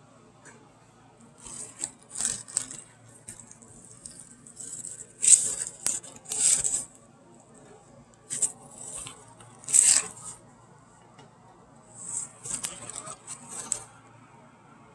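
Orange plastic mesh produce bag crinkling and rustling in irregular bursts as it is handled and loaded with apples, the loudest bursts about five, six and ten seconds in.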